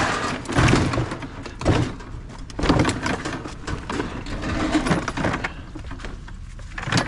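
A Huffy bicycle being set down and shoved onto a pile of wire shelving and other scrap in a mesh-sided trailer: several clattering metal knocks and rattles with scraping between them.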